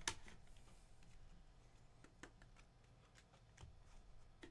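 Faint handling noise of a cardboard trading-card hobby box: a sharp tap just after the start, then scattered light clicks and rustles.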